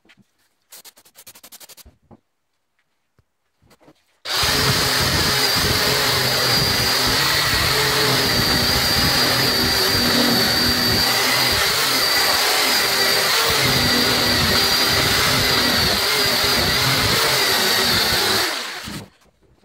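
Power drill spinning a wire-brush wheel against a rusty steel file, scrubbing the rust off the teeth. It starts about four seconds in after a few light handling clicks, runs at a steady pitch, and winds down about a second before the end.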